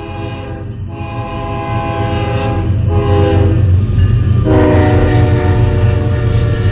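Diesel freight locomotive's air horn sounding a chord in separate blasts, a long one, a short one and then a long held one starting about four and a half seconds in, the pattern of a grade-crossing warning. Under it the steady low rumble of the passing locomotives and train grows louder.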